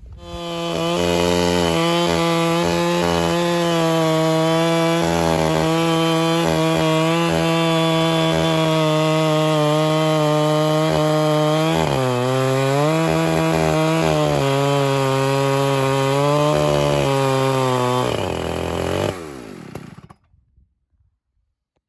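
Electric chainsaw fitted with a ripping chain, running steadily under load as it rips a log lengthwise into a board. Its pitch sags briefly about twelve seconds in, then near the end the motor is released and winds down to a stop.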